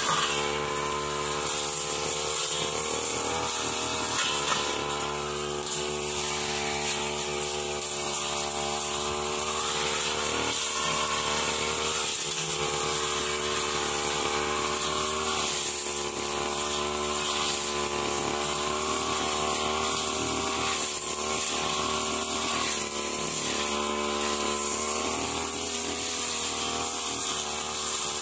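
A backpack brush cutter's engine running steadily at high speed while the blade cuts through grass and brush, its pitch dipping slightly now and then.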